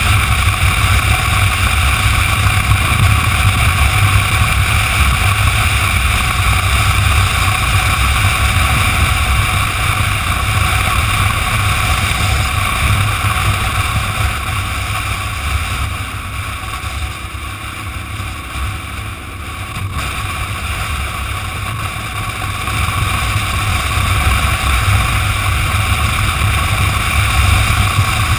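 Motorcycle at road speed, heard from a handlebar-mounted camera: a steady rush of wind noise over the engine and tyre drone. It eases for a few seconds about two-thirds of the way through, then builds again.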